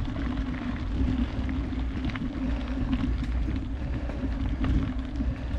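Steady low rumble of wind buffeting the microphone, with a faint scatter of small clicks.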